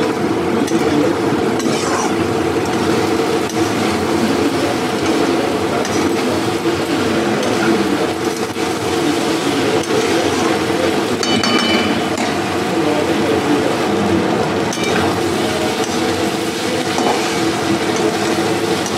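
A metal spatula scraping and stirring through potatoes and peas in a metal kadai, with a few sharp clinks against the pan's rim, while the spiced masala fries. A steady low hum runs under it.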